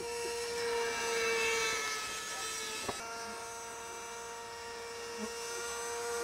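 A small brushed 40 mm electric ducted fan on an RC model jet in flight, giving a steady high whine with a hissing edge. It swells louder about a second in, then eases off, and there is one sharp click about three seconds in.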